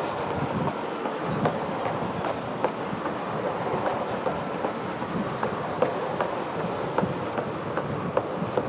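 Onewheel Pint's single tyre rolling along a concrete sidewalk: a steady rumble with short clicks about once a second as it rides over the slab joints.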